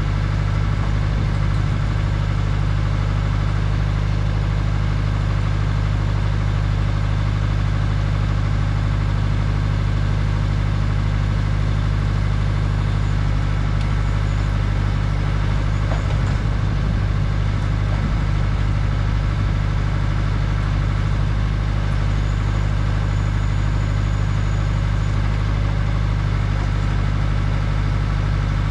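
Boart Longyear DB100 crawler drilling rig's engine running steadily, powering the hydraulics as the drill mast is swung upright.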